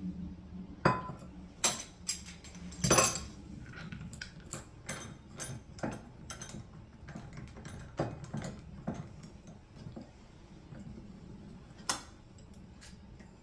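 Wine bottle being opened with a corkscrew: a run of sharp clicks and clinks of metal and glass, loudest in the first three seconds, then scattered, with one last clink near the end.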